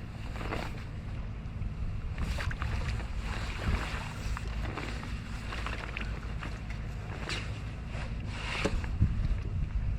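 Wind buffeting the microphone as a steady low rumble, with scattered short clicks and rustles of handling close by.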